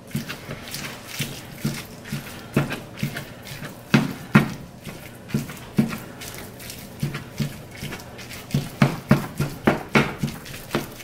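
Plastic spatula chopping and scraping raw ground turkey in a nonstick frying pan: a steady run of irregular taps and knocks against the pan, about two to three a second.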